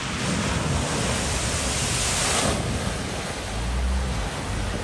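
Floodwater rushing and spraying as a Renault SUV pushes through a flooded ford, its bow wave surging around the wheels; the splashing is loudest for the first couple of seconds and then eases, with the car's engine humming low underneath near the end.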